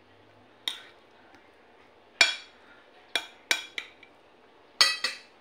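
Metal fork and spoon clinking against a plate while eating. About seven sharp, ringing clinks come at uneven intervals; the loudest is a little over two seconds in, and a pair comes near the end.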